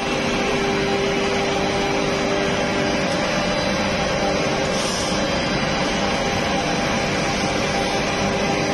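Rubber extrusion line running: a steady mechanical drone with a constant hum over it.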